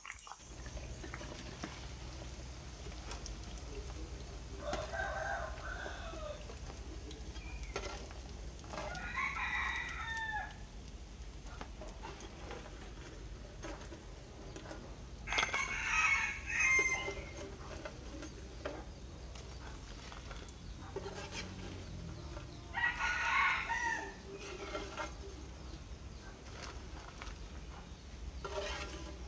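A rooster crowing four times, each crow lasting one to two seconds, about five, nine, sixteen and twenty-three seconds in, over a low steady hum.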